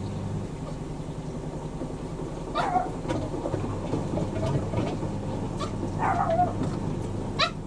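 Two front-loading washing machines running together mid-cycle, with a steady low motor hum. A few short squeaky squelching sounds come through, about three in all.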